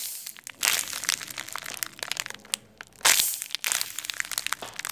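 A handmade paper squishy being squeezed in the hand: its paper shell and stuffing crinkle and crunch in a series of bursts, the loudest about three seconds in.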